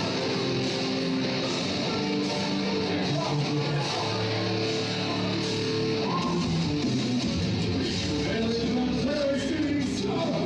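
Loud rock entrance music with guitar and singing, playing without a break as a wrestler comes to the ring.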